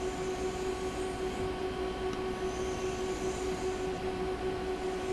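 A steady machine hum with a few overtones runs under soft scraping swishes of a Mora knife blade drawn along a red oak lapping board loaded with abrasive compound and oil. The clearest swish comes about halfway through.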